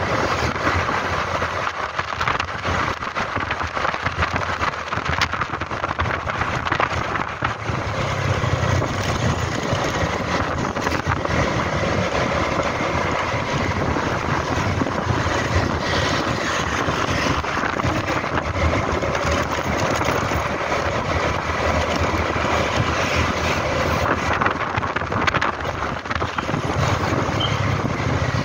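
Motor scooter riding along a street: steady wind rush on the microphone over the scooter's engine and road noise.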